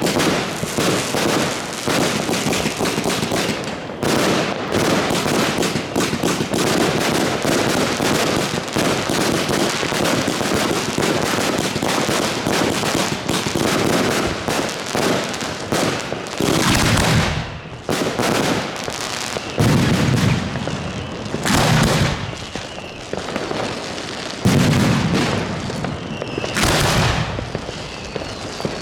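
New Year's Eve fireworks: a dense, continuous rattle of firecracker bangs and crackling for roughly the first half. Then comes a series of separate heavy booms, about two to three seconds apart, each with a low rumbling tail.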